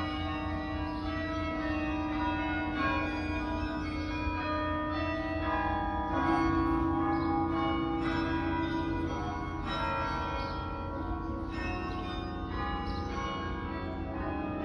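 Carillon in Yale's Harkness Tower playing a melody: tuned bronze bells struck one or a few at a time, a new note every half second to a second, each ringing on under the next.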